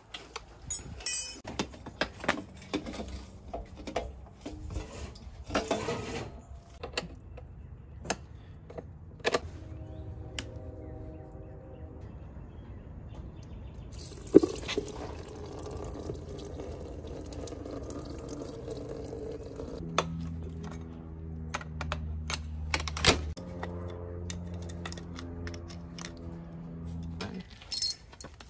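Metal clicks and clinks of hand tools and bolts being worked off a motocross bike. Partway through, a steady run of coolant drains from the engine into a plastic jug. Quiet background music with held chords plays under the later part.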